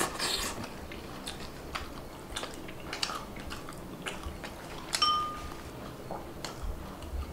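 Eating by hand: soft chewing and small scattered clicks of food and fingers on a plate. About five seconds in, a drinking glass clinks once with a short ringing tone.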